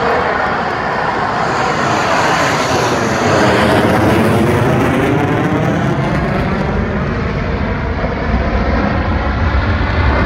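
F-16 fighter jet's single engine as the jet passes low overhead: a loud jet rush whose tone sweeps as it comes nearest about four seconds in. It then gives way to a deeper rumble as the jet moves away.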